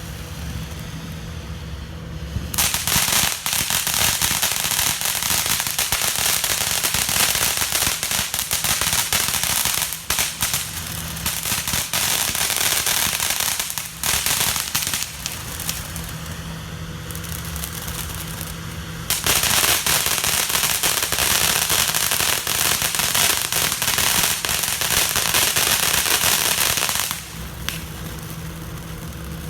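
Strings of firecrackers going off in long runs of rapid crackling pops. The first run starts a few seconds in and lasts about eleven seconds. After a lull of several seconds, a second run lasts about eight seconds.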